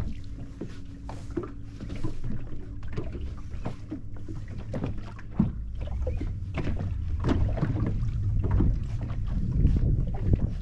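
Wind buffeting the microphone and water lapping against an inflatable boat's hull, a low rumble that grows stronger near the end, with scattered small knocks and clicks.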